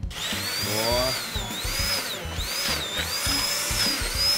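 Electric immersion hand blender running in a bowl of chickpeas, herbs and spices to make falafel mix; its motor whine dips in pitch again and again as the blade bogs down in the thick mixture, then recovers.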